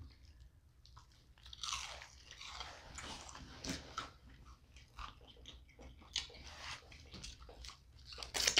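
Biting into and chewing a stacked sandwich of breaded fish, breaded chicken and beef patties, with irregular crunching of the crisp breading.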